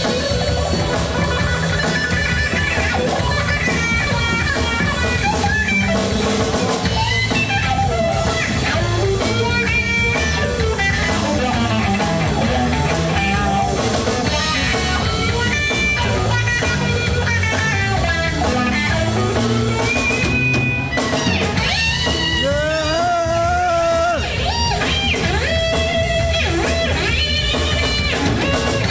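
Live rock-blues band playing an instrumental: electric guitars over a Pearl drum kit, with the lead guitar bending notes and adding vibrato about two-thirds of the way through.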